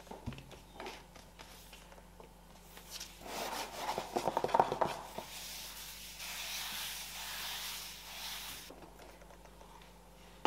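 Cardboard packaging being handled: the cover sheet of an iMac box rubbing and scraping against the inner box as it is lifted out. A burst of quick crackles about four seconds in is the loudest part, followed by a few seconds of sliding, rustling friction.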